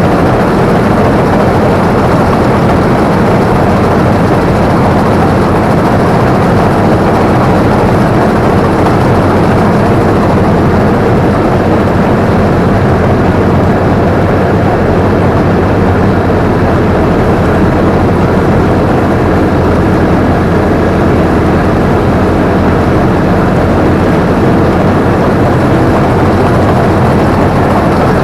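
Combine harvester running steadily under load, its engine and machinery heard up close from the operator's seat. The noise is loud and even throughout.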